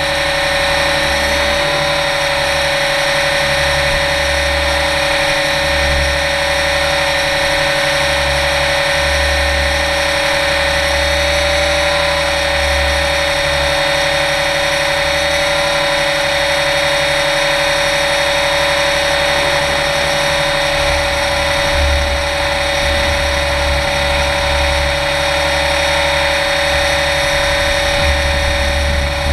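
Align 700E electric radio-controlled helicopter in flight, heard from a camera mounted on it: a steady whine of several even tones from the motor and rotor over a low rumble that swells and fades.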